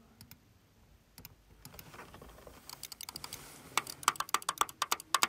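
Typing on a computer keyboard: a few scattered keystrokes, then from about a second in a fast, continuous run of key presses that gets louder toward the end.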